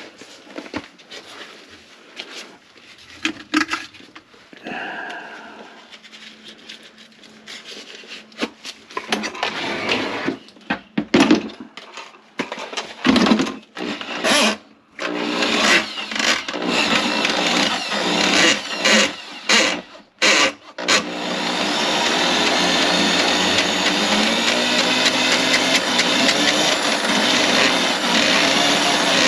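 Electric drain-cleaning machine switched on and off in short runs, then running steadily for the last several seconds, its motor driving the cable into a kitchen drain line clogged with grease.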